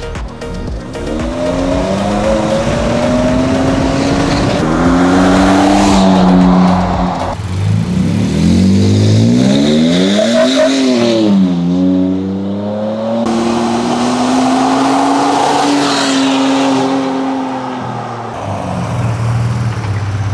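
Next-Gen Ford Ranger Raptor's 3.0-litre twin-turbo V6 running through an aftermarket dump-pipe exhaust with custom resonators, accelerating hard. The exhaust note rises in pitch and drops back several times as it revs and shifts, climbing highest about halfway through before falling away.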